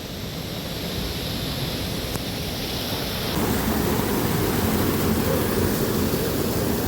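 Waterfall water rushing in a steady roar of noise, growing a little louder about halfway through.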